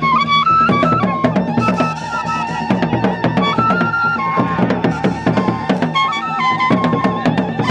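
Gurunsi traditional drums beating a fast, dense rhythm, with a high melody stepping between a few notes above them.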